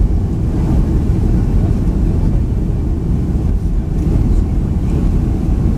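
Boeing 757-200 cabin noise on final approach, heard from a seat over the wing: a steady low rumble of engines and airflow past the extended flaps.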